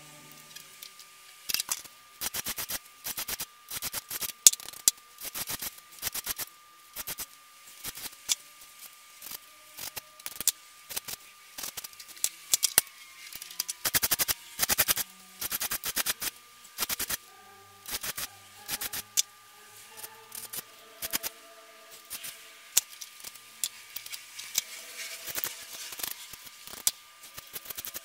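A flat hand file rasping on a small metal part clamped in a bench vice, in short irregular strokes about one to two a second.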